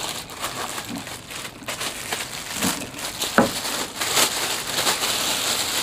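Clear plastic bag crinkling as it is pulled and peeled off a subwoofer, a steady irregular crackle with a few soft knocks as the subwoofer shifts on the table.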